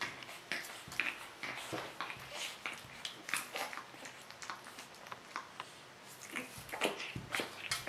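Eight-week-old pug puppy scuffling at a mirror: short, irregular scratches and clicks of paws scrabbling on the tile floor and against the glass, busier near the end.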